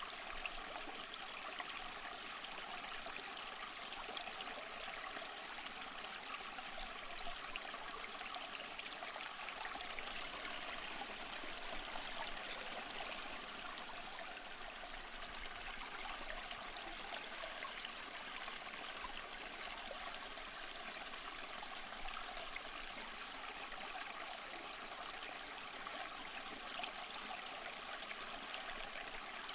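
A small stream running and trickling, a steady even rush of water with fine splashing and no pauses.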